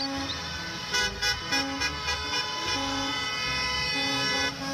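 School bus sound: a long, steady horn-like tone, with a few short clicks about a second in.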